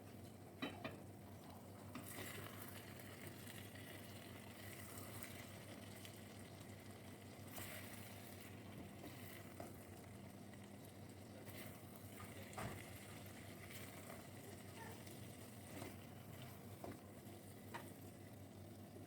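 Faint sizzling of potatoes and eggplant frying in a pan, with a scattering of short clicks.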